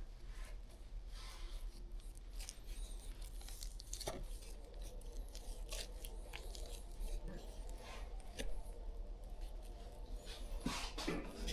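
Faint, scattered rustling, scraping and small clicks of hands working on a deer mount, over a steady low hum.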